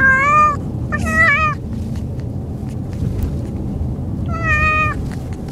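Cat meowing three times, each call about half a second long, the first two close together and the third a few seconds later, over the steady low rumble of a moving car's cabin. The owner puts the meowing down to car sickness.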